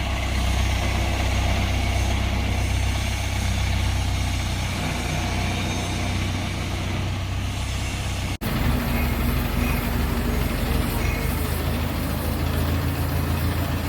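Drum wood chipper machine running with a steady low hum and mechanical noise. The sound cuts off for an instant about eight seconds in and picks up again with a slightly different character.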